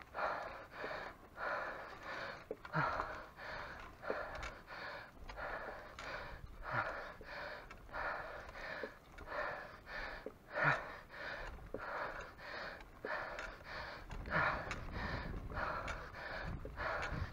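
A man breathing hard and fast from exertion while cycling, about two breaths a second, with a short voiced gasp every couple of seconds.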